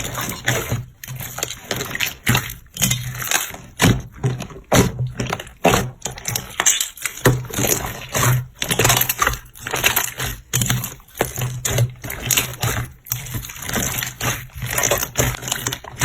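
Slime being squeezed, pressed and stretched by hand, making dense, irregular wet squelches and crackling pops.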